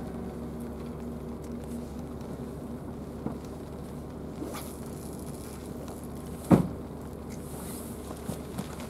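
Steady low hum of an idling engine in the background, holding a few fixed pitches. A single loud knock about six and a half seconds in.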